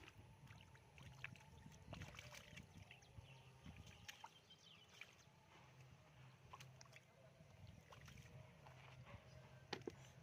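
Faint splashing and sloshing of shallow floodwater, with scattered small clicks and a faint steady low hum underneath.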